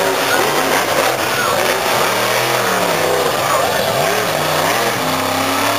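Monster truck engine revving hard, its pitch swelling up and dropping back several times, then holding steady near the end.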